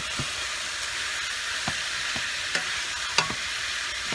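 Chicken pieces sautéing with ginger and garlic in a pot over medium heat: a steady sizzle, broken by a few short knocks of a utensil against the pot, the loudest about three seconds in.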